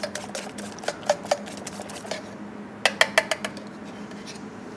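Small wire whisk lightly beating egg whites in a stainless-steel tray, the wires ticking against the metal in quick runs. There are a few strokes near the start and a fast flurry about three seconds in, over a faint steady hum.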